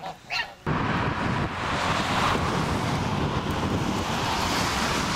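A goose honks briefly, then after a sudden cut a steady, loud rushing of wind buffeting the microphone, with a fluttering low rumble.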